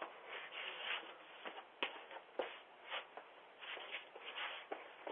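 Scuffing and rustling noises through a doorbell camera's microphone, with a couple of sharp clicks about two seconds in.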